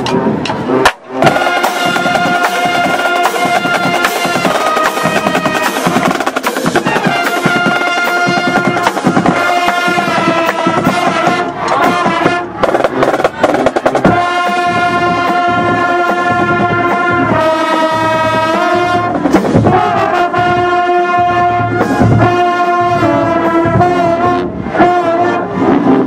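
Marching band playing in the stands: brass sounding loud held chords that change every second or two over steady drum strokes. The sound briefly cuts out about a second in.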